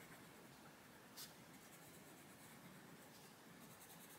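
Faint scratching of a Black Widow coloured pencil shading on paper, with one short click about a second in.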